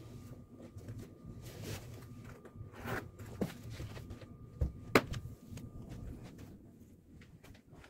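Someone getting dressed: soft rustling and handling of clothes and shoes, with a few sharp knocks, the loudest about five seconds in.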